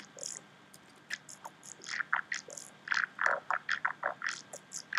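Wet, growly formant Reece bass made with Ableton Live's Vocoder driving a subwoofer synth, playing as a run of short stabs with a quieter gap about a second in.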